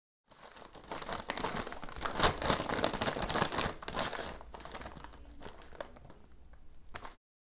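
Crinkling of plastic snack-chip bags (Takis Fuego and Flamin' Hot Cheetos) being handled. It is loudest in the first half, quieter after that, and cuts off abruptly near the end.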